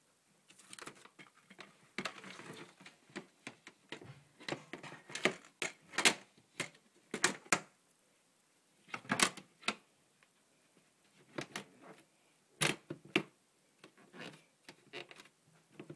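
Irregular clicks and knocks from hands handling things around a glass snake vivarium, in quick clusters with a few sharper single knocks.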